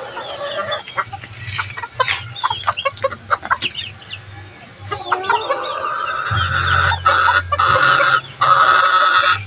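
Young Duke Hulsey gamefowl roosters clucking, with sharp clicks and short chirps in the first half. About halfway through a loud, drawn-out call starts and holds to the end, briefly breaking once.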